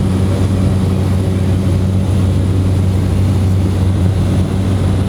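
Propeller aircraft engine droning steadily, a loud, even hum with a deep tone and its overtone that hold unchanged throughout.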